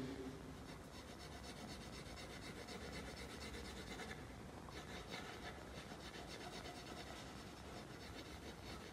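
Graphite pencil rubbing across drawing paper in soft, repeated shading strokes, laying down a dark tone.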